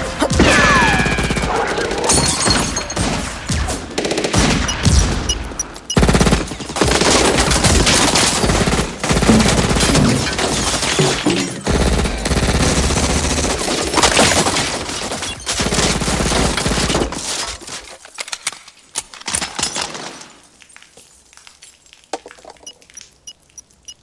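Heavy gunfire from many guns firing at once, in rapid, overlapping shots. After about 17 seconds it thins to scattered single shots and dies down.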